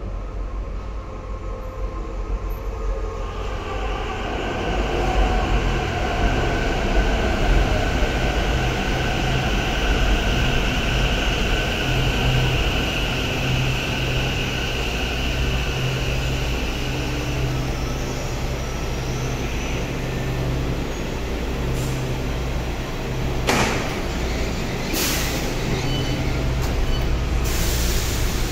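Taichung MRT Green Line metro train pulling into the station with a low hum and a steady high whine that fades as it comes to a stop. Near the end come a few short sharp door sounds as the platform and train doors open.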